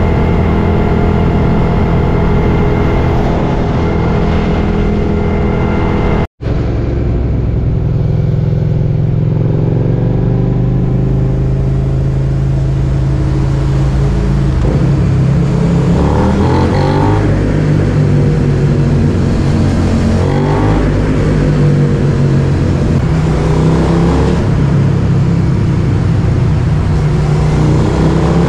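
Suzuki SV650X's V-twin engine with an aftermarket Scorpion exhaust running at a steady cruise, heard on board. After a short break about six seconds in, heavy wind rumble joins the engine, and the revs rise and fall several times through throttle and gear changes.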